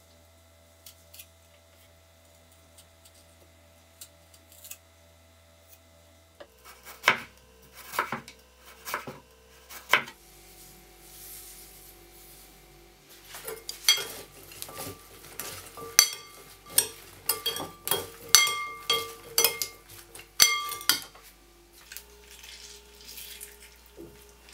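Faint knife taps on a wooden cutting board, then a metal spoon clinking and ringing against a glass bowl as sliced vegetables and carrot are tossed with sugar for quick pickles. The clinks come thick and loud through the middle of the stretch.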